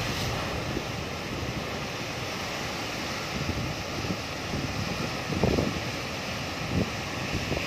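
Heavy ocean surf breaking against rocky cliffs, a steady wash of noise, with wind gusting on the microphone a couple of times in the second half.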